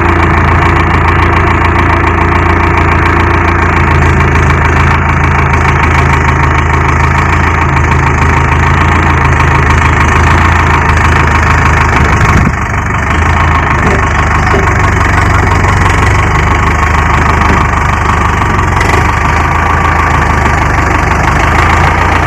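Preet 6049 tractor's diesel engine running hard under load as it tows a second tractor and a loaded trolley: a steady, deep, loud engine hum with a brief dip about halfway through.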